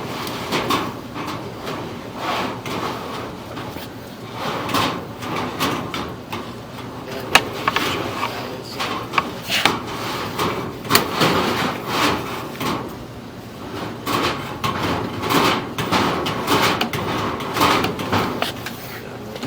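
Duct inspection camera being worked into sheet-metal ductwork, with irregular knocks, scrapes and rattles against the metal.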